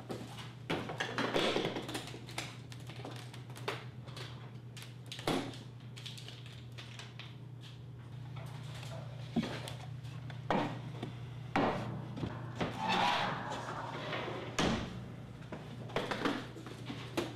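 A series of separate knocks, clicks and handling noises as an aluminium carrying case is set down on a car's hood and handled, over a low steady hum.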